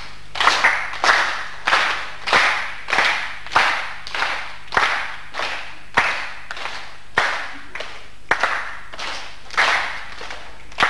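A group of people clapping together in a steady rhythm, about three claps every two seconds.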